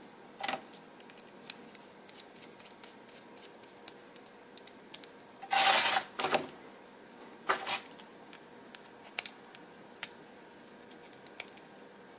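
Small scattered clicks and rustles of hands handling a plastic pluggable screw-terminal block and stepper-motor wires, with a brief louder rustle a little before halfway and two smaller ones after it.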